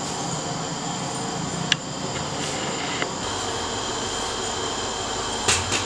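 Steam hissing steadily out of the top vent of a steel puttu tube set on a pressure cooker over a full gas flame, as the puttu steams. A single light click about two seconds in.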